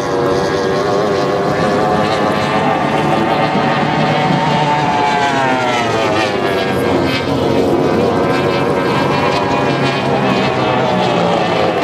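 Outboard engines of F2 tunnel-hull race boats running at race speed. One boat passes close about five to seven seconds in, and its engine note rises and then drops in pitch as it goes by. Another falling note comes near the end.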